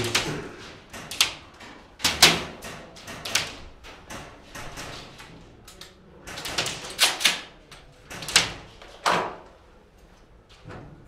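A series of about nine sharp knocks and cracks, irregularly spaced with some close pairs, each ringing briefly in a small room. They trail off over the last two seconds.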